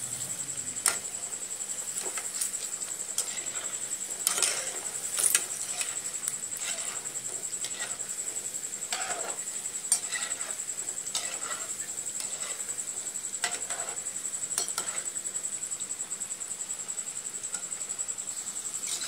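Oil bubbling and sizzling as potato snacks deep-fry in an aluminium kadhai, with a slotted steel spoon knocking and scraping against the pan every second or two as they are turned. A thin steady high whine runs underneath.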